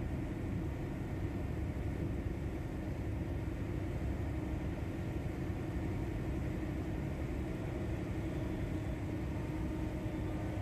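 Boat engine running steadily: a low rumble with a steady droning tone over it.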